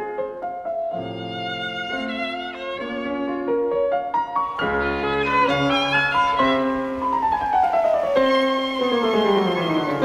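Background music: a violin melody, with a long falling run of notes near the end.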